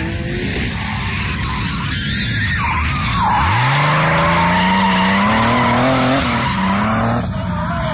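A car drifting on tarmac: its engine revs climb steeply from about three and a half seconds in and stay high while the tyres squeal in a long slide. About seven seconds in the revs drop and the tyre squeal stops.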